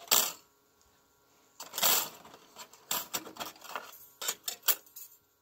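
Thin metal cutout words and their plastic packaging being handled and set down on a table. A sharp rustle comes at the start and a longer one about two seconds in, then a run of light metallic taps and clicks.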